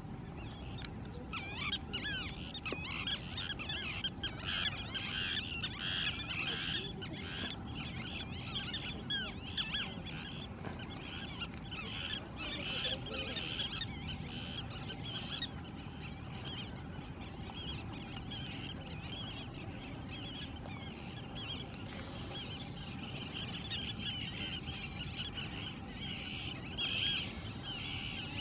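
Many birds calling at once: a dense, continuous chatter of short chirps and squawks, with a steady low background rumble and a faint hum underneath.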